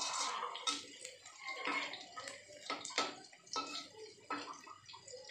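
Chopped shallots and garlic sizzling in oil in a stainless steel wok, with a metal spatula scraping and clicking against the pan several times as they are stirred.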